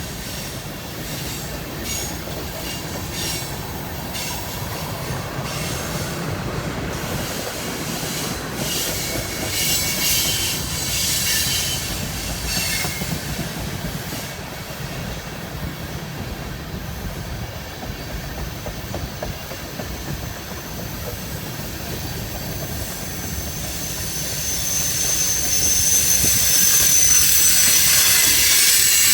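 Freight cars of a CSX freight train rolling past, wheels clicking steadily over rail joints. Near the end it grows louder and a high wheel squeal rings out.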